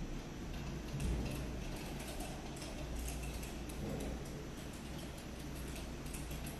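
Many small lamp units of a floor light installation clicking irregularly as they switch on and off, several clicks a second, over a low steady hum.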